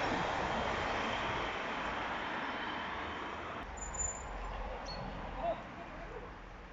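Outdoor rushing noise of traffic, slowly fading, with a low rumble coming in about halfway and two short high chirps near the end.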